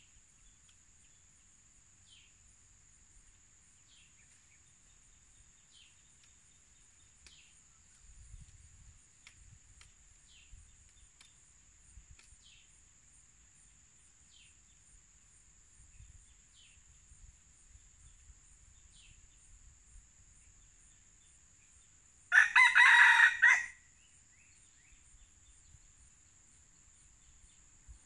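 A red junglefowl rooster crows once, a short loud crow about a second and a half long, near the end. A steady high insect drone and faint short chirps every couple of seconds run underneath.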